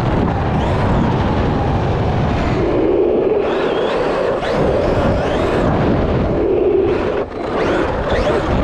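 Traxxas Maxx RC truck driving, heard from its onboard camera: the electric motor's whine rises and falls repeatedly with the throttle over a rough, loud rumble of tyres and drivetrain on pavement.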